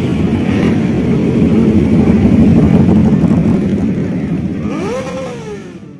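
Many motorcycle engines running as a group rides past in traffic, a dense steady engine noise that is loudest in the middle. Near the end a tone rises and then slowly falls, and the sound fades out.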